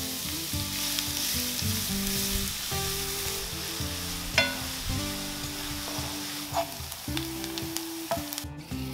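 Chopped onion sizzling in hot olive oil in a nonstick frying pan, stirred with a wooden spatula, with a sharp knock about four seconds in. Soft background music with low held notes plays underneath.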